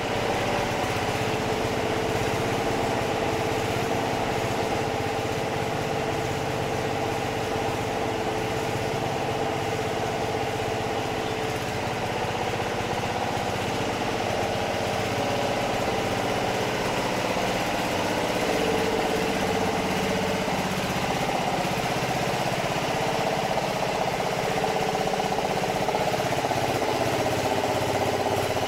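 Diesel engine-driven water pump sets running steadily, pumping floodwater off the railway tracks.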